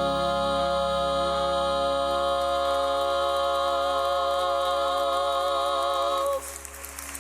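The held final chord of a Southern gospel song, a sung note with vibrato over a sustained accompaniment, ending abruptly about six seconds in.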